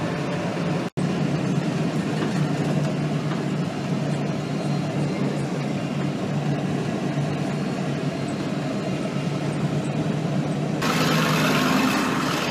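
A vehicle's engine running steadily with a low rumble, cut off for a moment about a second in; a hiss comes in over it near the end.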